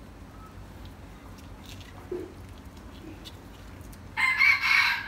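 A rooster crowing, loud and harsh, starting about four seconds in.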